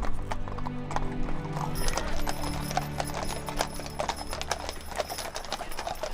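Hooves of a horse-drawn wagon team clip-clopping in a quick irregular patter, busier from about two seconds in, with background music of long held low notes underneath.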